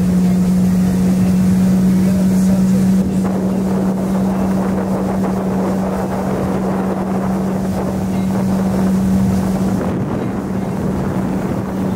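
Small boat motor running with a steady, even hum as the boat moves across the water, with wind noise on the microphone.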